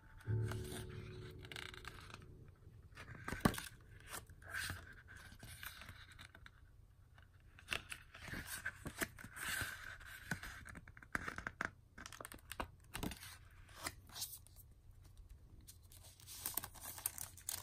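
Pages of a CD booklet being turned and handled: paper rustling and scraping with scattered light clicks, and one sharper knock about three and a half seconds in.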